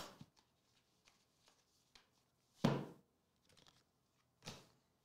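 Quiet handling of trading cards and their cardboard packaging on a table: a few faint taps, with a louder handling sound about two and a half seconds in and another shortly before the end.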